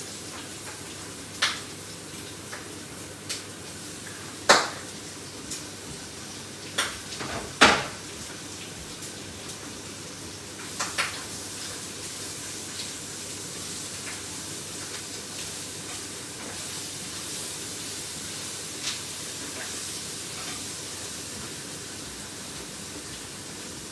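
Pork frying in a pan with a steady sizzle, while a cooking utensil stirs it and knocks sharply against the pan several times in the first half.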